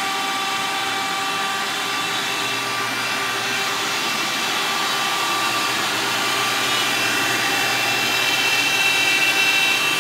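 A CNC machine's router motor running steadily, a whine over a rushing sound, getting a little louder near the end.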